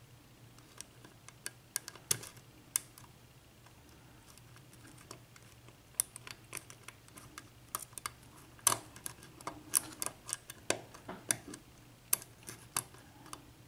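Lock pick clicking and scraping against the pin stacks inside a 6-pin US Lock KIK cylinder during single-pin picking: irregular sharp little clicks, a few around two seconds in, then a denser run from about six seconds on.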